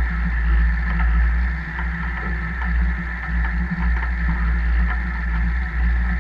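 Tractor and trailed field sprayer driving across a field while spreading liquid fertiliser: the engine and rig run steadily under a heavy, uneven low rumble from wind on the boom-mounted microphone, with faint rattles.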